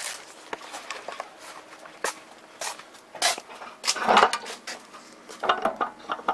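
Sharp clicks and knocks at intervals, with a louder clatter about four seconds in: a door's lever handle and latch being worked as the door is opened.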